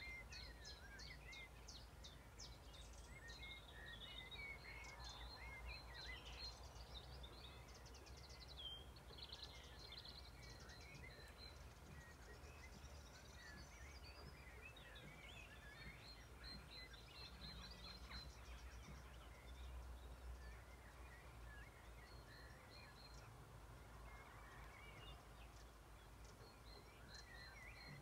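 Faint evening birdsong from several small birds: chirps, whistled notes and trills throughout, over a low steady rumble.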